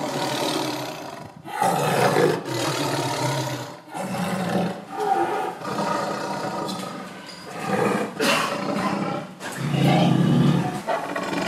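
Lion growling and roaring in about eight rough bursts of a second or so each, one after another.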